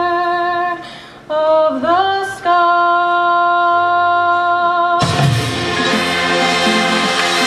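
Marching band show music: a lone solo line holds long notes, breaks off briefly and scoops upward in pitch, then the full band of brass and drums comes in loudly about five seconds in.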